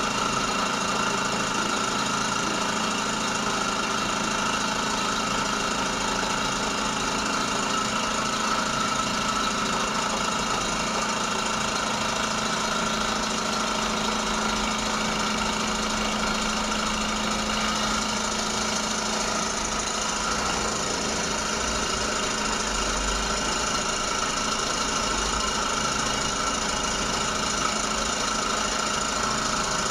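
Steady hum of an electric machine running without pause, with a constant high tone over a lower drone and a background hiss.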